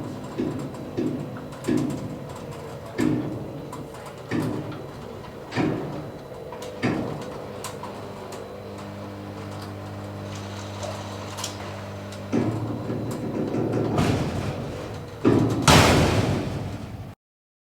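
Automatic tilt garage door and its opener in operation: a run of knocks about every second and a quarter, then a steady motor hum that grows louder, and a loud burst of noise near the end as the door finishes its travel.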